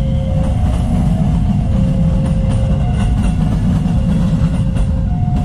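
Railway level-crossing warning alarm sounding a two-tone signal, a lower and a higher note taking turns about once a second, over a heavy low rumble from an electric commuter train pulling away and idling motorcycles.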